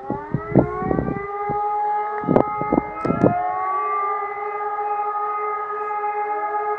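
A distant civil-defence siren sounding a test alarm. It winds up in pitch over the first few seconds, then holds a steady tone made of several pitches at once. Several loud short knocks fall within the first three seconds, and a fainter rising tone comes in near the end.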